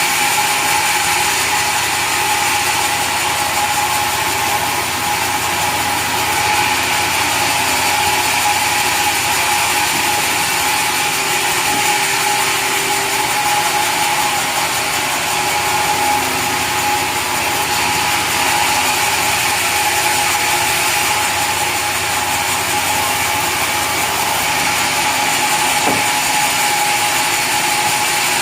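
Sawmill saw running steadily: a constant whine over dense mechanical noise, with no break in level.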